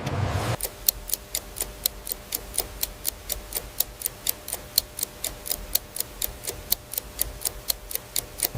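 A timepiece ticking steadily, about four ticks a second, starting about half a second in and stopping near the end.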